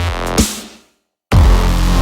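Background electronic music with a heavy bass. About half a second in, a falling bass sweep fades out into a brief dead silence, then the music cuts back in abruptly.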